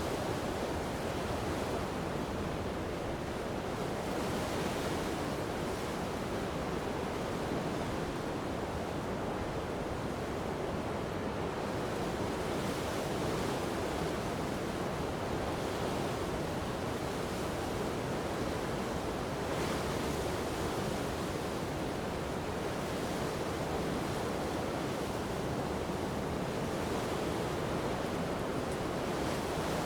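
Strong coastal wind blowing steadily over the sound of waves washing on the shore, a continuous rushing noise that swells slightly now and then in gusts.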